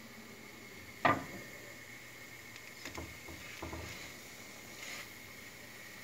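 A sharp knock about a second in, then a few lighter knocks: a cooking utensil striking a frying pan while the egg-topped pancake is being turned.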